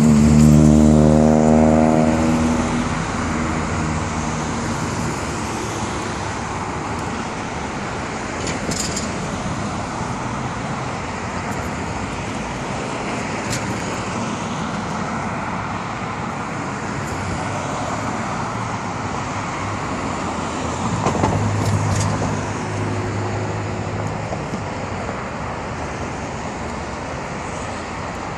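Exhaust of a 2015 Ford Mustang fastback driving past and pulling away, its engine note loudest at first and fading over the first few seconds. Steady street traffic noise follows, with another vehicle passing, swelling and fading, a little past two-thirds of the way through.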